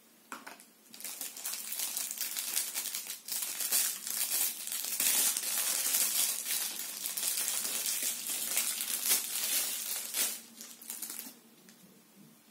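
Thin plastic packaging crinkling and crackling as small packets are handled and opened by hand, starting about a second in and stopping shortly before the end.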